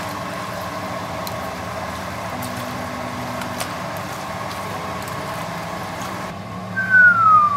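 A steady mechanical hum, with a few faint clicks of metal tongs against the pot. Near the end a single loud tone falls in pitch for about a second.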